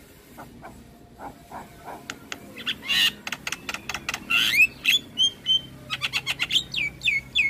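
Javan myna singing: a fast run of sharp clicks and chirps with short whistled notes that slide downward, starting quietly and getting louder and denser about two seconds in.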